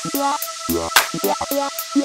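Background music with a steady beat: a sharp drum hit about once a second over short, clipped melodic notes.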